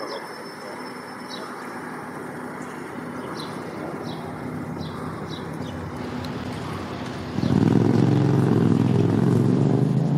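Steady road-traffic noise. About seven seconds in, a nearby motor vehicle's engine comes in suddenly and loud and runs for about three seconds as it passes.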